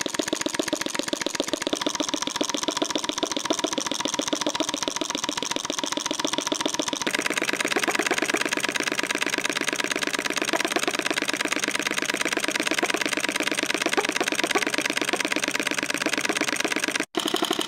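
Homemade miniature model engine running at speed: a rapid, even clatter of strokes. Its tone shifts about two seconds in and again a few seconds later, and it cuts out for an instant near the end.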